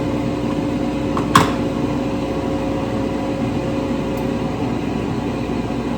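Steady hum of a running kitchen appliance with a fan, holding one pitch, with a single light clink about one and a half seconds in.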